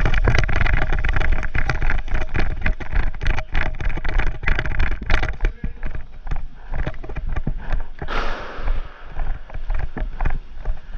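A player running in airsoft gear: quick, irregular footfalls and rattling kit over a heavy rumble of movement on the body-worn camera's microphone. A hissing swell comes about eight seconds in.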